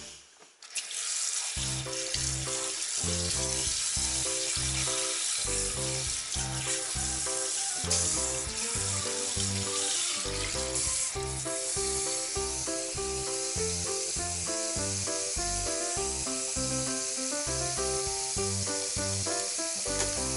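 Background music with a steady beat, over a kitchen tap running into a stainless-steel sink as fish are rinsed under it. The music comes in about a second and a half in, and the water hiss thins out about twelve seconds in.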